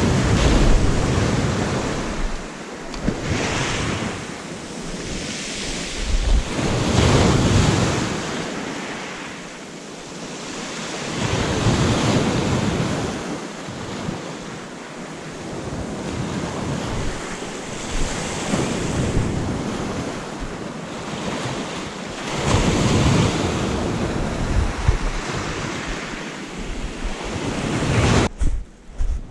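Sea waves breaking and washing on the shore, swelling and fading every few seconds, with wind buffeting the microphone.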